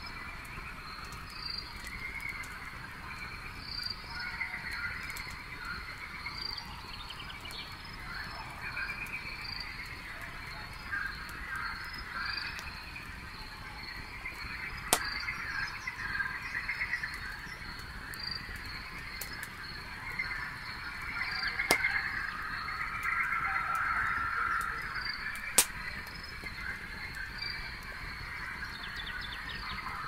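Night chorus of frogs and insects, with a steady high chirping running under the frog calls, while a campfire crackles faintly and gives three sharp pops in the second half.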